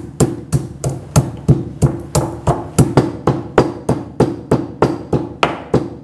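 Stone pestle pounding black peppercorns and cumin seeds in a stone mortar: a steady run of sharp knocks, about three a second.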